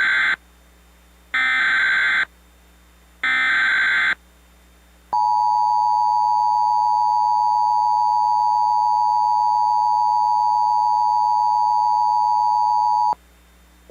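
Emergency Alert System SAME header: short bursts of screeching digital data, each just under a second, three in a row. They are followed by the EAS two-tone attention signal, a steady dual tone held for about eight seconds that cuts off sharply. Together they signal that an emergency alert message is about to be broadcast.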